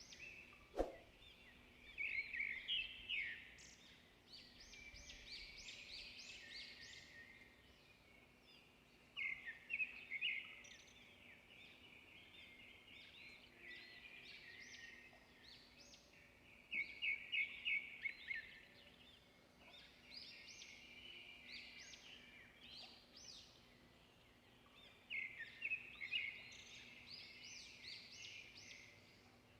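Small birds chirping in repeated runs of quick short notes, some runs rattling off several notes a second. A single sharp click just under a second in.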